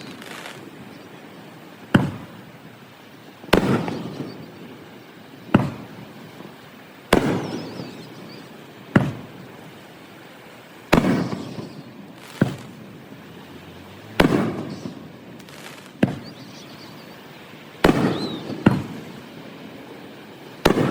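Fireworks shells bursting overhead, about a dozen sharp bangs every one and a half to two seconds, each trailing off in a rumbling echo. The recording is played back at double speed.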